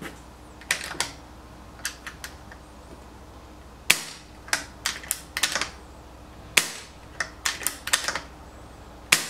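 Silenced BSA Superten Mk2 .22 PCP air rifle being dry-fired without pellets: a series of sharp cracks. The three loudest come about two and a half seconds apart, with lighter clicks between them.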